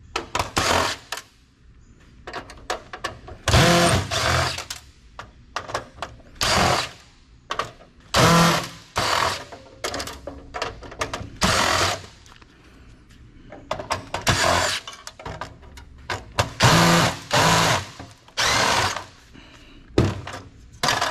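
Handheld power drill/driver running in about a dozen short bursts of under a second each, backing out screws while an old computer is taken apart, with small clicks and clatter of parts between bursts.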